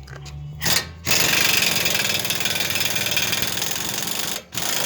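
Pneumatic impact wrench running, undoing the tie rod end nut: a continuous hammering rattle of about three seconds, a brief stop, then a second run.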